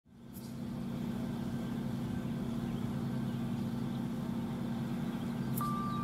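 Steady low mechanical hum, with a faint click near the start. Near the end a steady pure tone begins.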